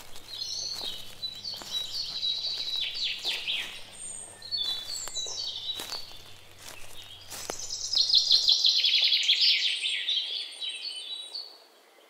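Birds singing and chirping, with quick repeated high notes and trills that come and go in bouts. A faint low steady hum lies underneath and cuts off suddenly about two-thirds of the way through.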